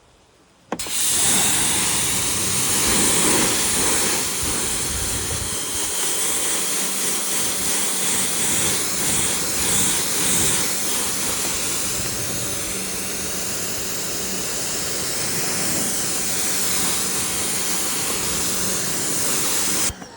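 Pressure washer spraying water: a loud, steady hiss that starts about a second in and cuts off abruptly just before the end, with a faint steady hum beneath it.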